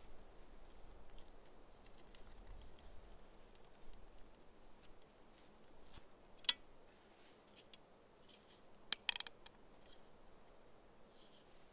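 Light clicks and rattles of a homemade wooden bucksaw being handled as its cord is twisted tight and the frame is lifted. There is a sharp click about six and a half seconds in, and a quick cluster of knocks around nine seconds.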